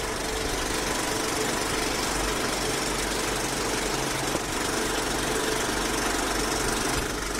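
A steady mechanical running noise: a constant whirr with a low hum and a fast, even rattle underneath.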